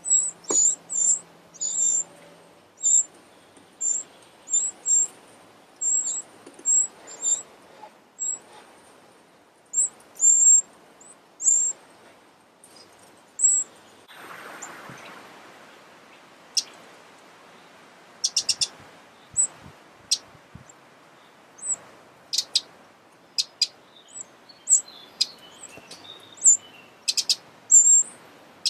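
Eurasian wren nestlings begging at the nest: short, very high-pitched cheeps in irregular runs, with a soft rustle about halfway through.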